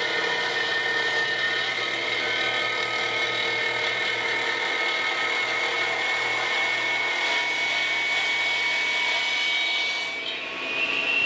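iQ dry-cut masonry saw, with its built-in dust vacuum, running under load as its blade cuts through a manufactured stone panel: a steady motor whine over a grinding hiss. About ten seconds in the whine jumps higher as the blade comes free of the cut.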